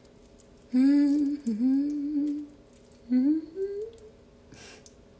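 A woman humming: a long, wavering note about a second in, then a short rising phrase.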